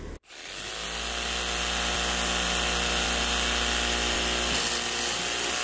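Jigsaw cutting through 3/4-inch PVC pipe: the motor starts suddenly, comes up to speed over about a second, runs steadily through the cut and stops near the end.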